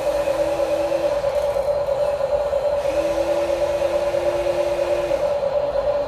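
Electric gear motors of a Huina 1593 RC excavator whirring as the boom raises: a steady whine, with a second, lower motor tone that cuts in and out as each function is worked, stopping about a second in, returning around three seconds in and dropping in pitch near the end.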